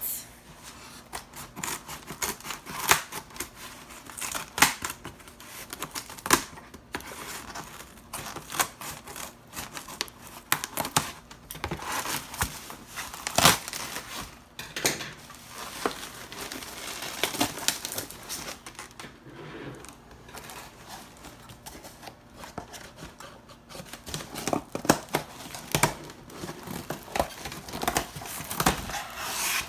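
Packaging being unwrapped by hand: irregular crinkling, rustling and tearing of wrapping, with scattered sharp clicks and knocks as the box is opened.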